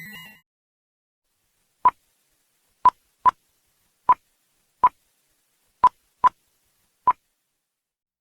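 Eight short electronic beeps, all at the same pitch, spaced unevenly with two close pairs among them and silence in between, as in an emergency alert signal. A loud multi-tone alarm cuts off just before them.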